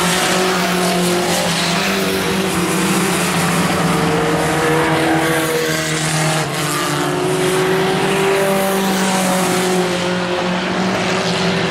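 Pickup-truck race engines running hard on a dirt oval, several engine notes rising and falling against one another over a steady loud drone.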